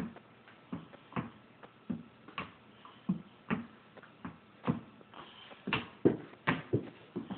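A series of short knocks and thuds, unevenly spaced at about one to two a second, growing louder and closer together near the end.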